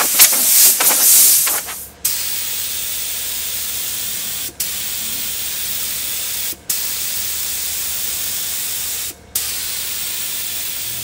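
A compressed-air blow gun blasting in loud, uneven gusts for about the first two seconds. Then a gravity-feed paint spray gun hisses steadily as it sprays paint, stopping briefly three times when the trigger is let go.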